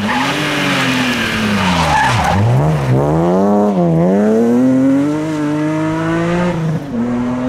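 BMW E36 rally car braking hard into a corner, engine revs falling through downshifts with the tyres skidding, then accelerating away, revs climbing through a quick gear change and on until another shift near the end.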